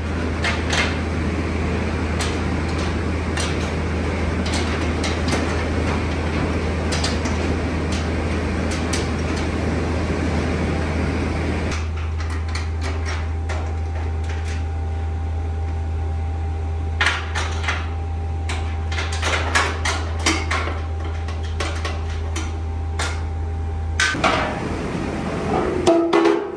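Factory machinery running with a steady low hum and scattered metal clanks and knocks. About halfway through the dense noise drops away, leaving the hum, a faint steady tone and more distinct clattering. The hum cuts off suddenly a couple of seconds before the end.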